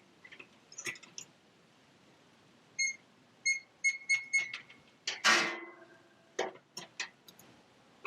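Opened electric space heater, live, with its thermostat switch being poked with a screwdriver: scattered clicks and a quick run of about six short electronic beeps from the heater, then about five seconds in a brief loud crackling rasp, the sparking of the switch's intermittent contacts.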